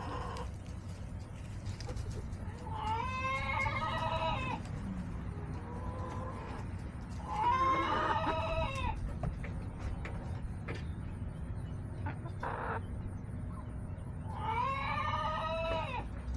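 Backyard chickens: one gives three long, drawn-out crowing calls several seconds apart, with fainter clucks in between.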